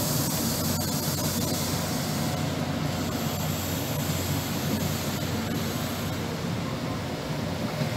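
InterCity 125 (HST) train moving through the station, its diesel power car engines giving a steady drone with a jet-like whine as the coaches roll past. A high hiss thins out about two and a half seconds in.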